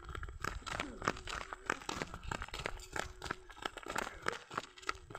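Small sneakers scuffing and crunching on a gritty dirt road as a child steps and dances, a quick irregular run of crunchy clicks over a low rumble.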